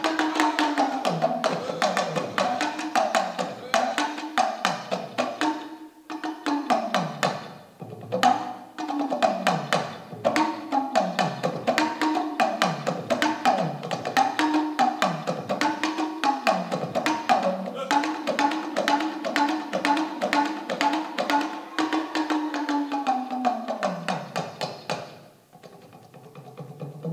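Talking drum played solo: rapid strikes whose pitch swoops down and back up over and over, each swoop about a second long, as the drum's tension is squeezed and released. The playing thins and drops off briefly near the end, then carries on more quietly.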